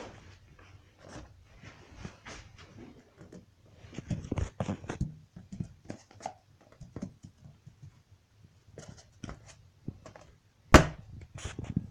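Scattered light knocks, scuffs and thumps from ferrets playing with an inflated rubber balloon on a hard floor close to the phone, with a busier flurry about four seconds in and one sharp loud knock near the end.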